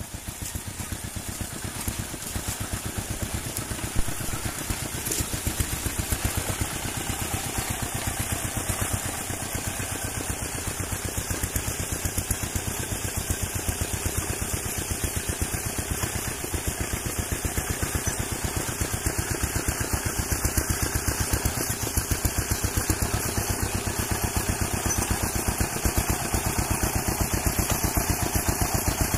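An engine running steadily at an even speed, with a rapid regular pulse.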